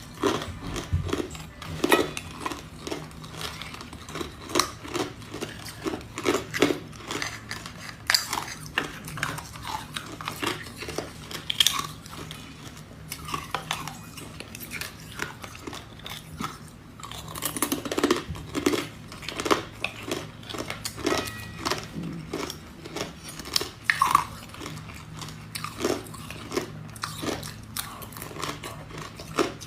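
Ice being bitten and chewed close to the microphone: a dense, irregular run of sharp crunches and crackles, with some louder bites.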